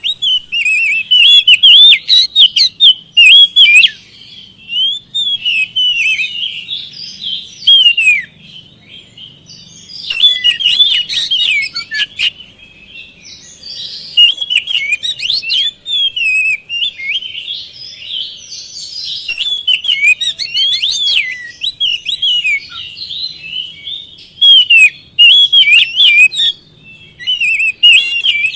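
Oriental magpie-robin (kacer) singing loudly: a fast, varied run of clear whistles and sharp high chips, delivered in bursts of a few seconds with short pauses between them.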